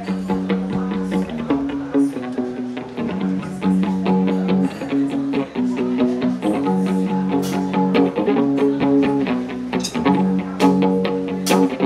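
A live band playing an instrumental passage: a Stratocaster-style electric guitar plays changing chords over a steady rhythm, with cymbal crashes now and then, the louder ones near the end.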